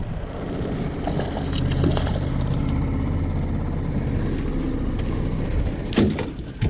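A steady low hum with wind noise aboard a small fishing boat, then a sharp knock about six seconds in, with a lighter one just after.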